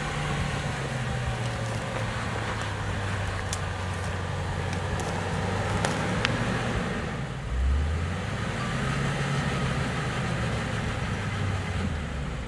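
2013 Range Rover's engine running steadily at low revs as the SUV crawls over a sandy rut. A few sharp clicks come partway through, and a short low thump about eight seconds in.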